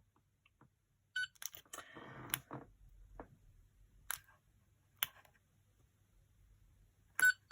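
Fourteenth Doctor sonic screwdriver toy: scattered clicks of its button being pressed and the toy being handled, with a short beep about a second in and two short beeps near the end. The double beep signals that it has switched to its green setting.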